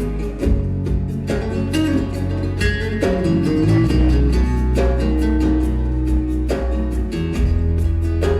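Live band playing flamenco-style instrumental music: nylon-string guitar picking a fast melody over bass guitar and steady percussion.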